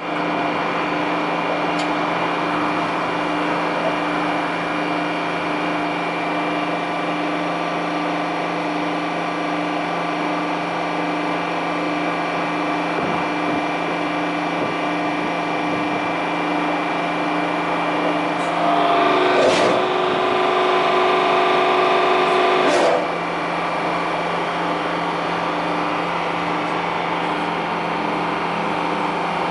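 Hydraulic power unit of a Gorter 150-ton press running with a steady hum. About 18 seconds in, the hydraulics come under load. A louder, higher whine runs for about four seconds, set off and ended by a sharp click.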